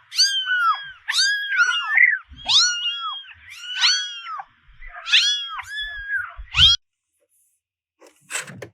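A cat meowing over and over: many short meows that rise and fall in pitch, in quick succession for about seven seconds. Near the end there is a brief sharp noise.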